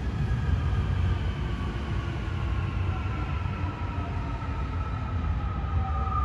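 Seoul Metro Line 2 new-build electric train running past, its wheels rumbling on the rails, with a whine from its traction motors sliding steadily down in pitch as the train slows.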